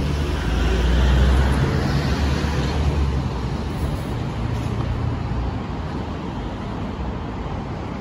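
Street traffic noise: a motor vehicle passes close by, loudest in the first three seconds, then a steady hum of traffic.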